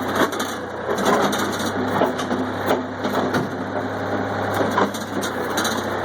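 Backhoe's hoe bucket pressing down and crushing trash in a dumpster, with repeated cracking and crunching of splintering debris over the backhoe's steady engine running.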